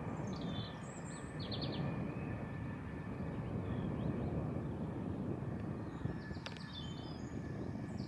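Steady low rumbling outdoor noise with a few faint, short bird chirps over it, a couple about a second in and more near the end.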